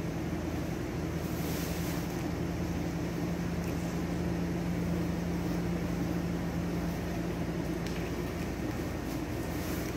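Steady low machine hum, like a running fan, with brief soft swishes of bed sheets being handled about a second and a half in and again near the end.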